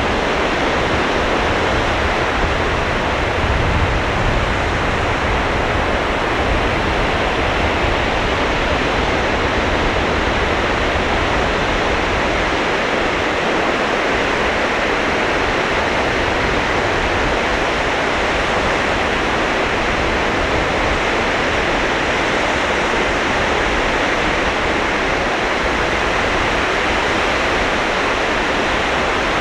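Sea waves breaking on the beach: a steady, continuous wash of surf with no single crash standing out.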